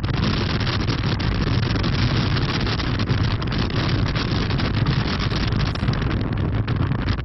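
Gale-force wind on a beach buffeting the camera's microphone: a loud, unbroken rumble and hiss with constant small gust crackles.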